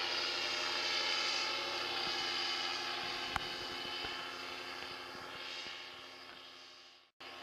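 Paramotor engine and propeller droning overhead, a steady buzz of several tones that slowly fades as it moves away, then cuts off abruptly near the end. A single sharp click about three seconds in.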